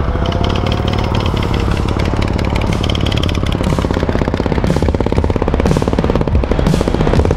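Motorcycle engine running under way with a fast, even beat of firing pulses, its pitch rising near the end as it speeds up.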